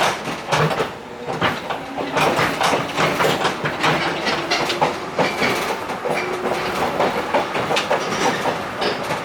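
Former JNR 103-series electric car (KuMoHa 102) running, heard at the gangway between cars: the steel gangway plates and bellows clatter and knock without pause, over the clickety-clack of the wheels on the rail joints.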